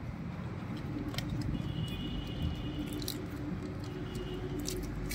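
Threaded metal end fitting of a hydraulic hose being turned by hand onto a hydraulic control valve: a few small metallic clicks and scrapes over a steady low background rumble.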